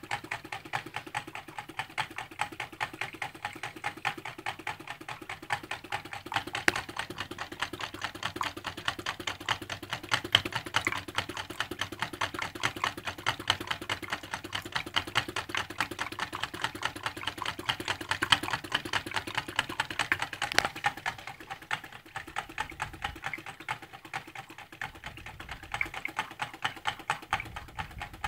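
Homemade tin-can Stirling engine running and driving its small water pump, its mechanism making a rapid, even clicking of several clicks a second. The clicks ease off a little for a few seconds near the end.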